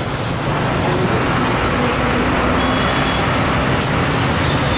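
Steady roadside traffic noise and street din with no distinct single event.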